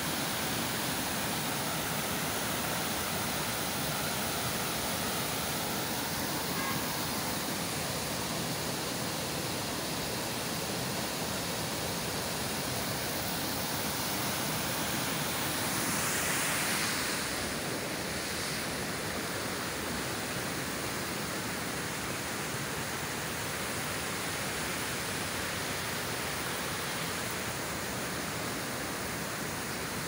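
Waterfall and stream water rushing over rocks, a steady, even noise, with a brief louder swell of hiss about halfway through.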